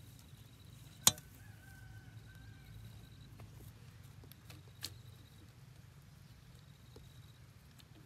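A single sharp knock about a second in, the loudest sound, and a softer click near five seconds, over a faint outdoor background.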